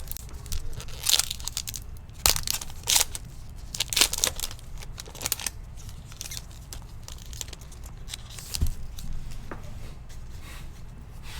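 Trading-card pack wrapper being torn open and crinkled, heard as a series of short rustles and tears, with a single click later on.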